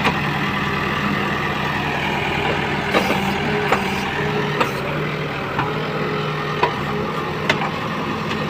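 Diesel engine of a Case backhoe loader running steadily, with a series of short, sharp clicks about once a second from about three seconds in.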